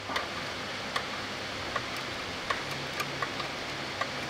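A hand tool working a fine-thread bolt on the cradle mount of a WW2 37mm tank gun, giving about eight short, sharp metallic clicks at uneven intervals over a steady background hiss.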